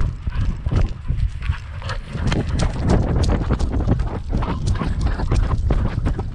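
Camera mount on a running dog jolting with each stride: quick, irregular thumps and knocks from the dog's footfalls and the shaking mount, over a heavy low rumble.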